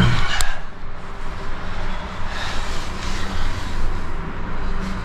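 Clothing rustling and boots scraping on rock as a person crawls into a low cave opening, with a short click about half a second in, over a steady low rumble.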